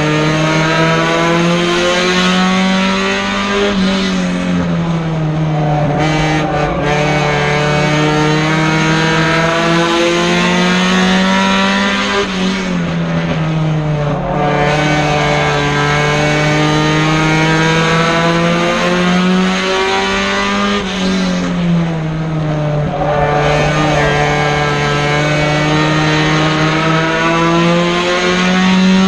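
Four-cylinder Mini Stock race car engine at racing speed, heard from inside the cockpit. The revs climb slowly, then drop sharply going into the turns, about every eight to nine seconds, and pick up again.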